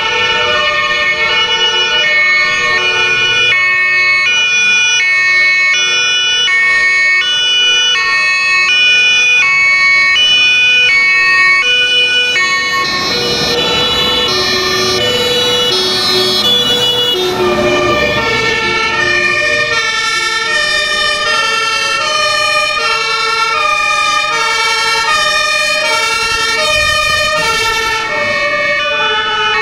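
Several German two-tone emergency sirens (Martinhorn) on fire engines sounding at once, each stepping back and forth between two pitches and overlapping one another. About halfway through, a fire truck goes past with engine and tyre noise, and its siren pitch drops as it passes.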